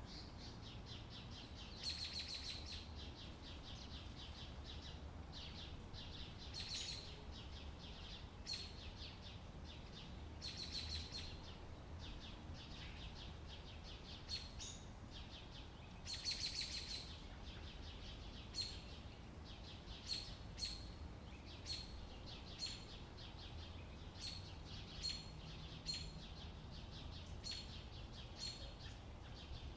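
Outdoor ambience of small birds chirping over a steady low background rumble. Several longer trilled bursts come at intervals, then in the second half short single chirps about once a second.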